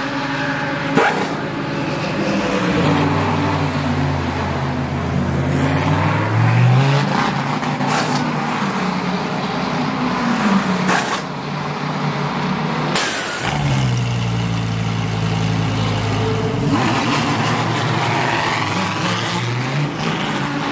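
Audi R8 LMS GT3's V10 engine running in the pit box, its revs rising and falling, with several short sharp bursts from the pit work about 1, 8, 11 and 13 seconds in. Near the end the engine pulls away with rising revs as the car leaves the box.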